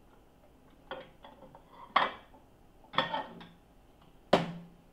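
Dish clatter: a plate knocking and scraping against the microwave turntable as it is lifted out, about four clinks roughly a second apart.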